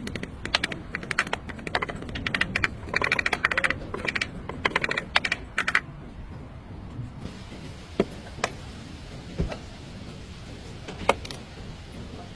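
A run of rapid, irregular sharp clicks and taps for about six seconds, then only a few single clicks.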